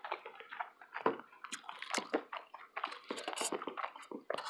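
Wet chewing and mouth smacks of someone eating, coming as irregular short clicks.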